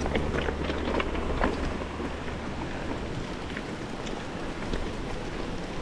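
Mountain bike moving over a rough trail: an even rumble of tyre and wind noise on an action camera, with scattered small clicks. A low steady hum stops about two and a half seconds in.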